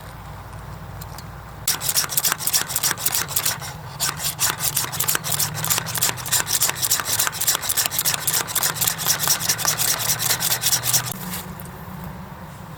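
Fast, regular scraping strokes, about five a second. They start about two seconds in and stop abruptly about eleven seconds in.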